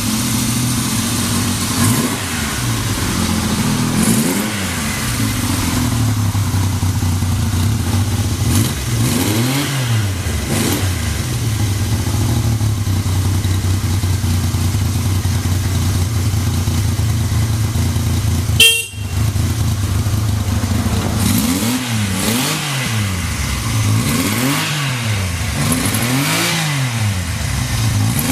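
Yamaha XS750 air-cooled three-cylinder engine running at a steady idle with no abnormal noise, its throttle blipped again and again so the revs rise and fall, most often in the last third. One short, sharp, loud noise about two-thirds of the way through.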